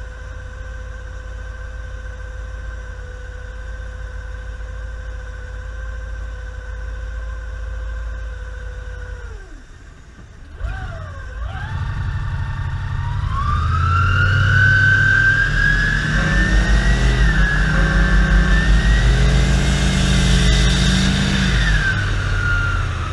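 Turbocharged V8 ski boat engine, set to 10 psi boost. It runs steadily at low speed with a steady whine, drops off briefly about ten seconds in, then is opened up: the engine pulls under load while a whistle climbs in pitch and holds high. Near the end the throttle eases back and the whistle falls.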